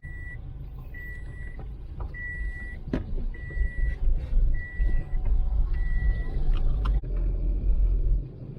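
A vehicle's reversing alarm beeping, six high, even beeps a little over a second apart, then stopping, over a low rumble.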